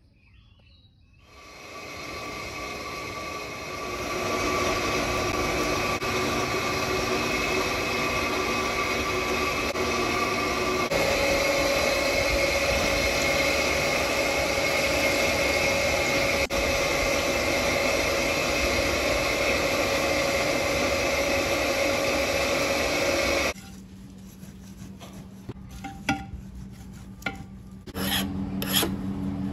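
A loud, steady rushing machine noise with a constant whine that drops in pitch partway through and cuts off suddenly. Near the end a hand file rasps in strokes across a forged steel knife blade.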